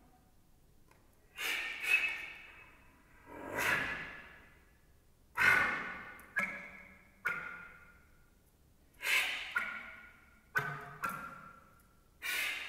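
Solo concert flute playing short, sharply attacked notes heavy with breath noise, each dying away, about ten of them separated by brief silences.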